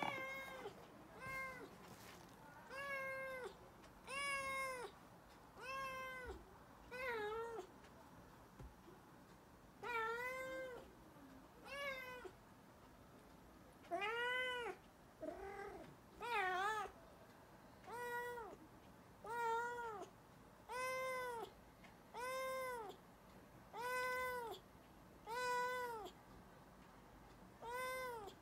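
Black-and-white kitten meowing over and over, about one high meow every second or two, each rising then falling in pitch, with a short pause partway through.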